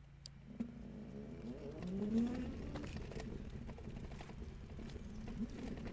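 A dove cooing, with a few low gliding coos, the clearest about two seconds in, over a low steady rumble.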